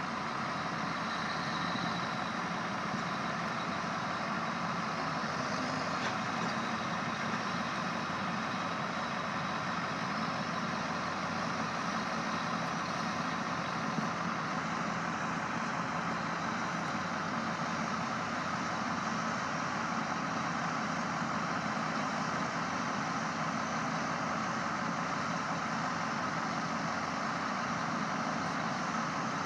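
Steady diesel engine noise from heavy equipment at work, a Kenworth T800 semi and the machinery of a high-dump cart that is lifting to load chopped ryegrass into its silage trailer.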